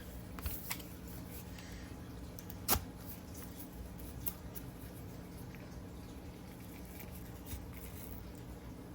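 A tube of Pillsbury crescent roll dough being worked open by hand, with light rustling and one sharp pop about three seconds in.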